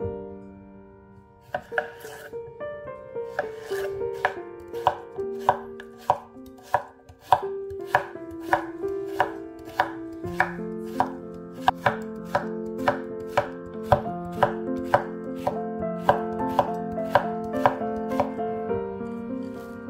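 Knife chopping food on a wooden cutting board in steady strokes, roughly two a second, over background piano music with held notes.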